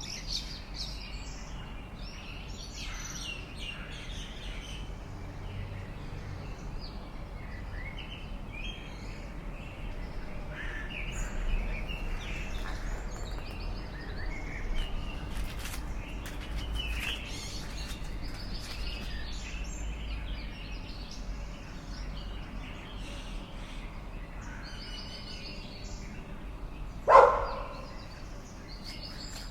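Several birds chirping and calling over one another, with short high chirps and trills throughout and a steady low rumble beneath. Near the end a single short, loud, lower-pitched sound stands out above the rest.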